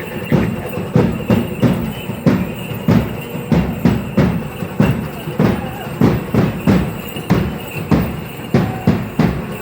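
A dance drum beating a steady, driving rhythm of about three strikes a second, as used to accompany a traditional danza.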